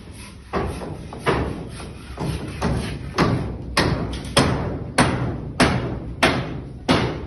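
A regular series of heavy blows, about a dozen, one roughly every half second, each a sharp strike that dies away quickly; they grow louder and more even after the first few.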